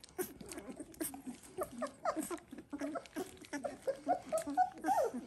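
Dalmatian puppies making short squeaks and whimpers, one ending in a falling whine near the end. Wet smacking and lapping clicks come through as a puppy licks rice pudding from a hand.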